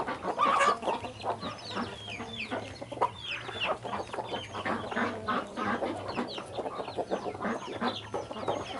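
A flock of domestic chickens clucking continuously while pecking at food, overlapping short calls mixed with quick high chirps.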